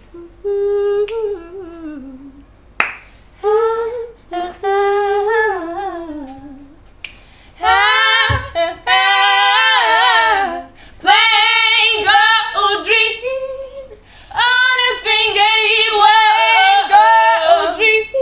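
Female voices singing a cappella, held notes bending up and down in melismatic runs, with a couple of sharp clicks.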